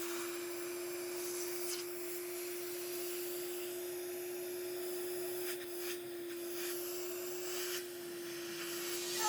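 Vacuum cleaner running with a steady hum and hiss, its suction drawing on a carburetor diaphragm and plunger assembly under test. A few faint knocks from handling the parts.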